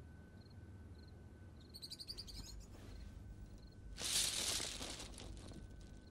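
Quiet night ambience with crickets chirping faintly and a faint steady high tone, light clicking about two seconds in, and a brief, louder rattling rush of noise about four seconds in.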